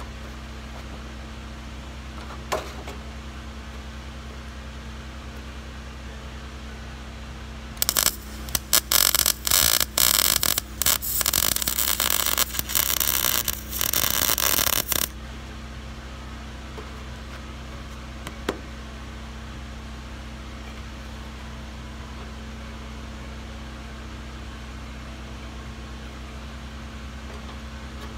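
Lincoln 140 MIG welder arc crackling as a flange is welded onto a steel roof: a few seconds of short stop-start tacks, then a steady bead of about four seconds that cuts off sharply. A steady low hum runs under it throughout.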